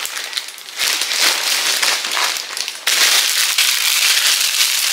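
Plastic grocery packaging crinkling and rustling as items are pulled out of a mesh shopping bag, growing denser and louder about three seconds in.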